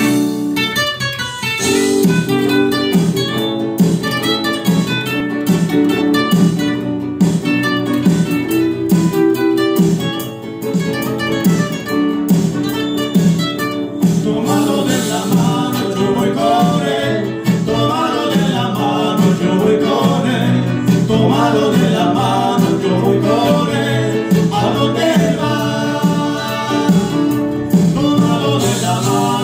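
A live Latin American trio playing two acoustic guitars with keyboard: an instrumental guitar introduction over a steady bass line, then singing joins about halfway through.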